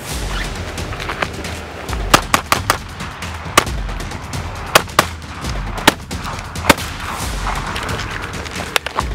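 A string of sharp handgun shots, some fired in quick runs, over background music with a low pulsing beat.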